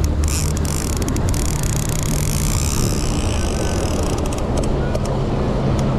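Boat engine running steadily at trolling speed with rushing wind and water. Runs of sharp rapid clicks come near the start and again about five seconds in.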